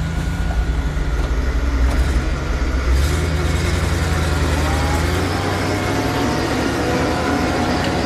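CROSSRC 1/10-scale RC tow truck driving slowly, with a steady low engine-like rumble that eases a little about five seconds in, and a faint rising whine late on.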